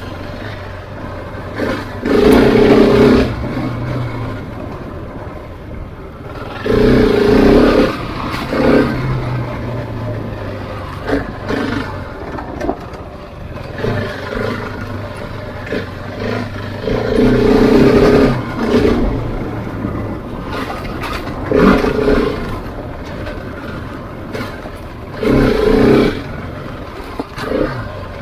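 Husqvarna 701's single-cylinder engine under way off-road, the throttle opened hard in about seven bursts of a second or two each between steadier running.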